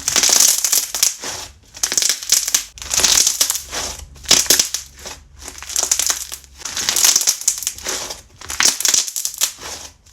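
Slime being squeezed and worked by hand, crackling and crunching in repeated squeezes about once a second.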